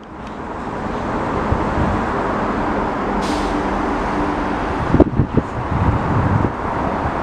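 Steady rumble and hum of an approaching train mixed with background traffic noise, fading in at the start. A brief hiss comes about three seconds in, and a few sharp knocks about five to six and a half seconds in.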